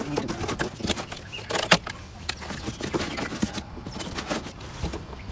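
Cardboard packing inserts being pulled out of a lawnmower's shipping box: scraping and rustling cardboard with scattered knocks and taps.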